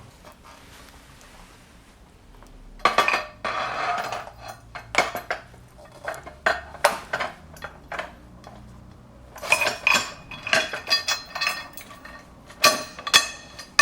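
Stainless steel bolts clinking and scraping against the rack's metal pivot block and mast as they are pushed through: a scraping rattle about three seconds in, scattered clinks, then a quick run of sharp metal clinks in the last few seconds.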